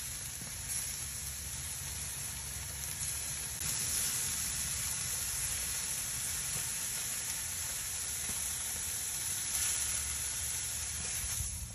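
Charcoal briquettes burning in a grill: a steady hiss with faint crackles over a low rumble, the hiss getting louder about three and a half seconds in.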